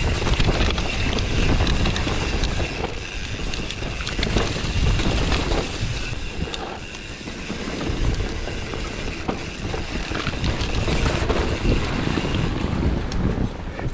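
Wind buffeting an action camera's microphone while a mountain bike descends a dirt trail, with tyre rumble and frequent clicks and knocks from the bike rattling over bumps.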